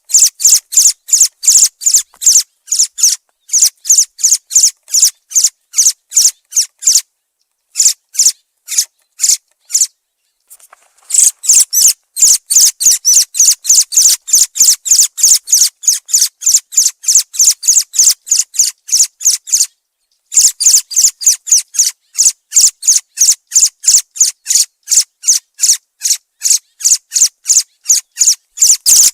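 Thrush (zorzal) calling: a rapid, even run of short high-pitched notes, about four a second, broken by short pauses about 7, 10 and 20 seconds in.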